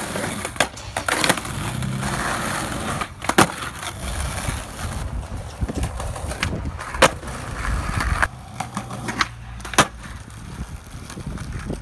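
Skateboard wheels rolling on concrete, broken by sharp clacks of the board's tail popping and the deck hitting the ground, several times.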